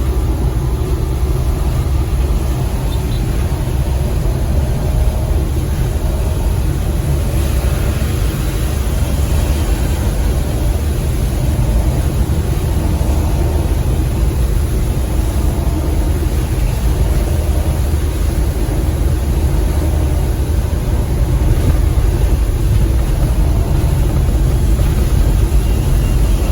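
Suzuki Multicab van driving: a steady low engine and road rumble with an even hiss of tyre and wind noise above it.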